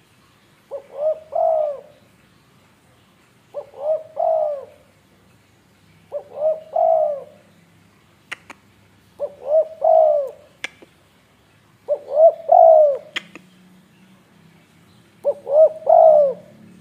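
Spotted dove cooing: a phrase of a few quick coos ending in a longer one, repeated six times about every three seconds. A few sharp clicks sound between phrases.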